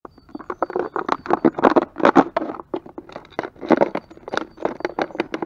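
A thin plastic soda bottle crackling and crinkling as it is squeezed and worked by hand: a rapid, irregular run of sharp crackles.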